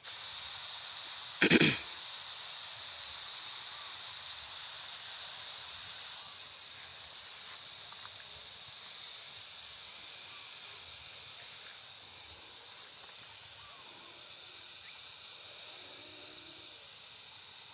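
Hand-pump pressure sprayer spraying a steady hiss of insecticide mist, easing slightly about six seconds in, with one brief louder sound about a second and a half in. Faint insect chirps go on in the background.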